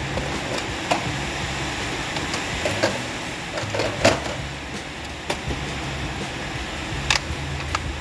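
Plastic toy trucks being handled on a tabletop: a few light clicks and knocks over a steady low hum.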